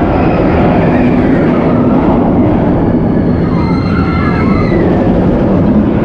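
A ride vehicle carrying seated riders runs through the park with a steady, loud rumble. Faint wavering high tones come and go in the middle.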